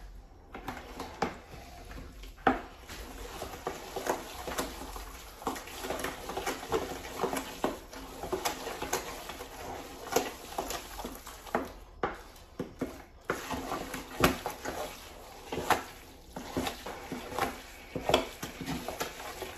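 A spoon stirring a thick batch of homemade dog food of ground turkey, rice and vegetables in a mixing bowl. The spoon clicks and knocks against the bowl at an irregular pace, with a short pause about twelve seconds in.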